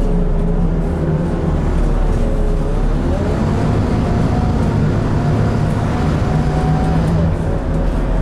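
Scania N230UD Enviro400 double-decker bus's 9.3-litre five-cylinder diesel and drivetrain running under way, heard from inside the passenger saloon. A whine rises in pitch about three seconds in, holds, and drops away near the end.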